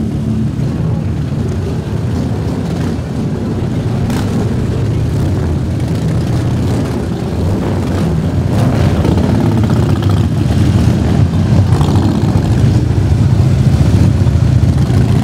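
Several cruiser and touring motorcycles running at low speed as they ride past in a line, their engines growing louder in the second half as the bikes come closer.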